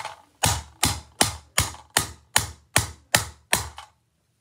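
A steady run of nine sharp knocks, about two and a half a second, each fading quickly, stopping abruptly near the end.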